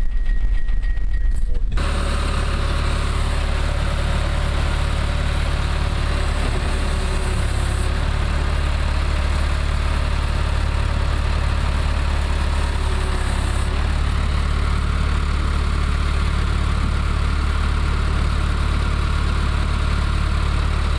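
Truck's diesel engine idling steadily, with a deep, even low hum. It takes over about two seconds in, after a brief stretch of road rumble heard from inside a moving vehicle.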